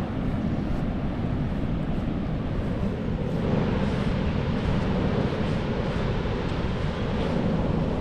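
Steady wind rumble on the microphone, with a rushing hiss that grows louder about three and a half seconds in.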